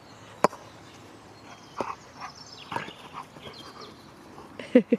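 A husky snorting several times as it noses at a ball on the grass, with two quick sharp snorts near the end.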